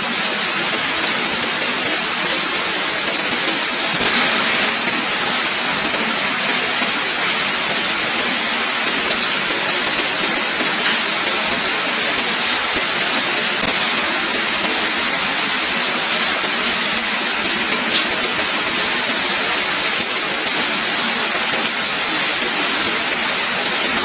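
Heavy rain falling steadily: a dense, even hiss of rain with the occasional sharper drop hitting close by.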